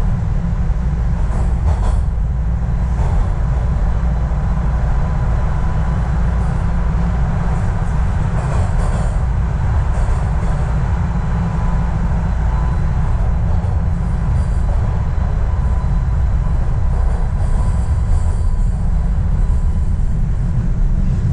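Toronto subway train running through the tunnel, heard from inside the car: a steady, loud low rumble of wheels on rail with a faint steady whine above it.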